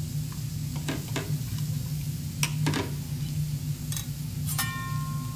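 Steel spatulas tapping and scraping on a teppanyaki iron griddle over a light sizzle, with about half a dozen short clicks and one ringing metallic clank near the end. A steady low hum runs underneath.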